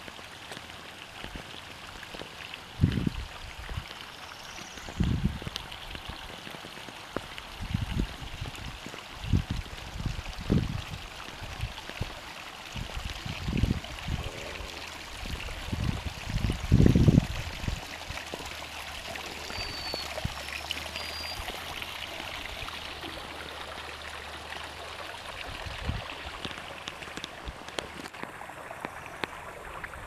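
Steady outdoor hiss with irregular low rumbles of wind buffeting the microphone, heaviest in the first seventeen seconds and loudest near the middle. A couple of short high chirps come about twenty seconds in.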